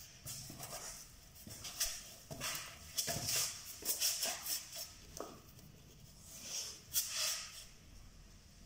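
Masking tape being pulled off its roll and handled along a baseboard: irregular rasping, rustling strokes, the loudest about seven seconds in.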